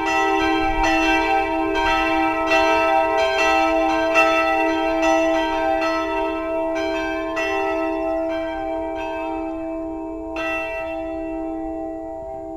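Church bells pealing, strikes coming about twice a second over a continuous hum from the bells. Near the end the strikes thin out and the ringing slowly dies away as the bells come to rest.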